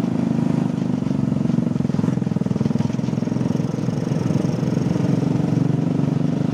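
Motor scooter engine running steadily at road speed, heard from the rider's seat, a fast even low pulsing with wind and road noise.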